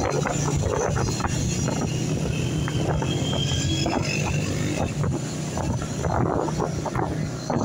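Honda CG 125's single-cylinder four-stroke engine running steadily while riding, with wind rushing over the microphone.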